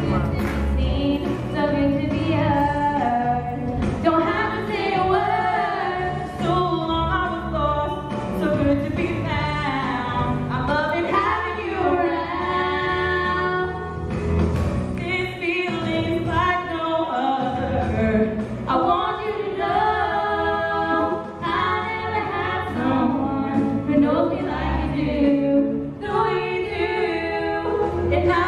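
Two girls singing a duet into handheld microphones, their voices amplified through the hall's sound system.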